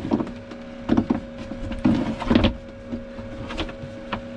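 Shower tray being handled and set into place, knocking and clunking several times in the first two and a half seconds, with a few lighter clicks later, over a steady low hum.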